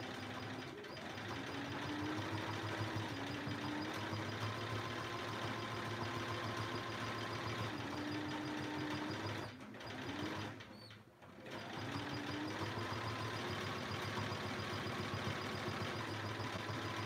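Domestic sewing machine running steadily while free-motion quilting through the quilt layers. Its motor speed rises and falls with the foot pedal. It stops for a moment a little past halfway, then starts stitching again.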